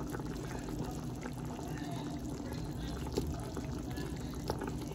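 Chicken and vegetable broth simmering in a cooking pot, a steady bubbling hiss with small scattered pops.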